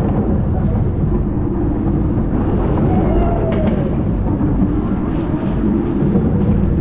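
Steady low rumble of wind buffeting the microphone, with a few faint wavering higher tones over it.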